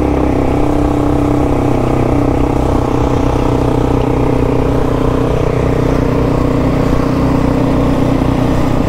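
Suzuki DR-Z400E's single-cylinder four-stroke engine running steadily as the motorcycle is ridden along.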